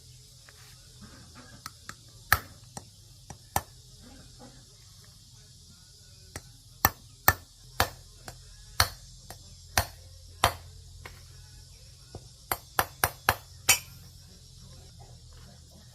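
Sharp, irregular metal taps and knocks from hand tools working on the crusher's parts, with a quick run of five strikes near the end.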